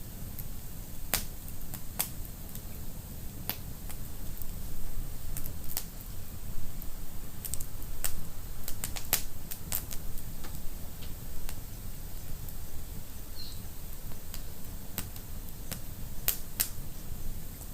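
Wood fire in a fireplace crackling: sharp, irregular pops about once a second over a steady low rumble of the flames, with a brief faint whistle about thirteen seconds in.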